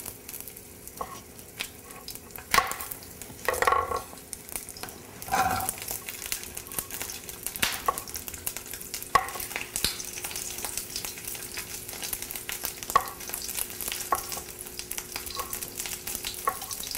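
Linguiça sausage pieces sizzling and crackling in hot olive oil in a frying pan, with sharp spits throughout. A knife cuts through more links onto a wooden cutting board, and there are a few louder knocks in the first six seconds.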